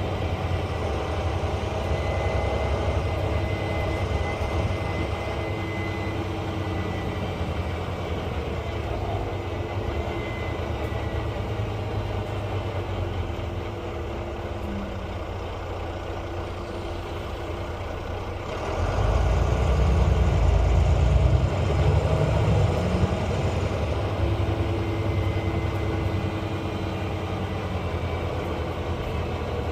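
Volvo B9 bus's diesel engine running at low revs, with a faint high turbo whistle in the first few seconds. About two-thirds of the way through, the engine note swells much louder and deeper for about five seconds, then settles back.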